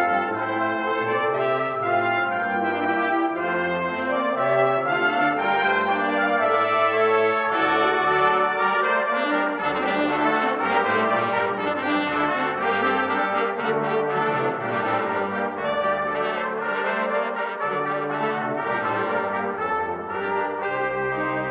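Brass ensemble playing an early-17th-century canzon, several parts moving against each other over a low bass line in a steady, full sound.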